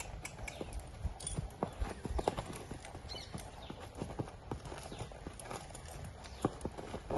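Horse's hooves clip-clopping in uneven, irregular steps as the ridden horse moves.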